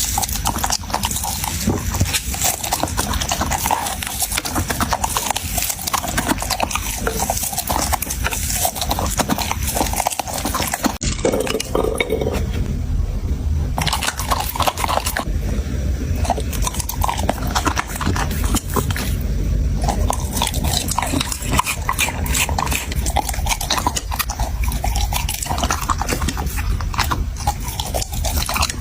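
Dog chewing a large piece of chicken, with dense, irregular crunching and clicking of its teeth.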